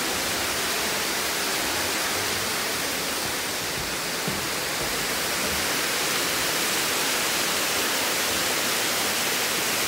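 Güzeldere Waterfall's water falling and splashing, a steady even rush; the fall is running at its low autumn flow.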